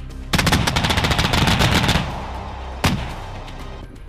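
Twin 35mm autocannons of a Gepard anti-aircraft gun firing a rapid burst of about a second and a half. A single sharp report follows near three seconds in and rings away.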